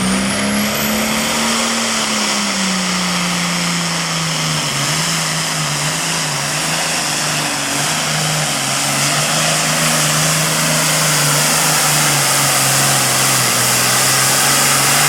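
Super Farm class pulling tractor's diesel engine running flat out under load, with a loud, hissing exhaust. Its engine note lifts in the first couple of seconds, then sags lower as the sled bears down and holds there.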